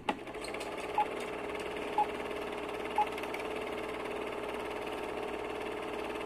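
A film-projector sound effect: a steady whir with a fast fine pulse, and three short beeps exactly one second apart.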